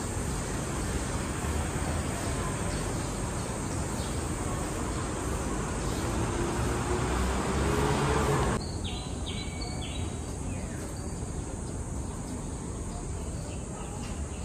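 Outdoor city ambience: a steady hiss of distant traffic with an insect-like buzz. It drops off abruptly about eight and a half seconds in, leaving a quieter background with a few short chirps.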